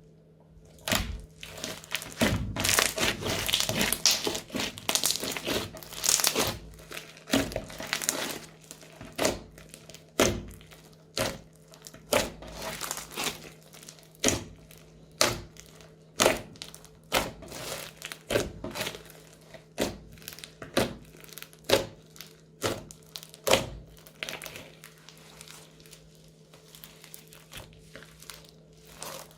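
Crunchy slime being squeezed and kneaded by hand: a few seconds of dense crackling, then a run of sharp crunchy pops about once a second, fading to lighter crackles near the end.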